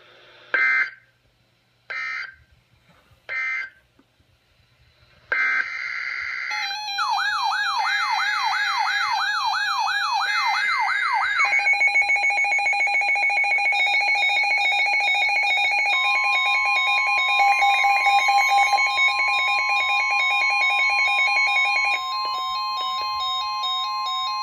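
Emergency Alert System tones between two NOAA Weather Radio warnings: three short bursts of digital SAME end-of-message code, then a warbling siren-like electronic alarm, then a rapid pulsed electronic alarm pattern. About two-thirds through, a steady warning tone joins and holds.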